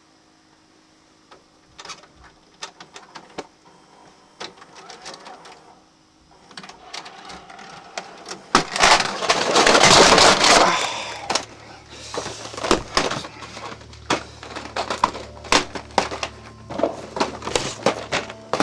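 Scattered sharp clicks and short rustles, with a louder noisy rush about halfway through, followed by a quick, irregular run of clicks.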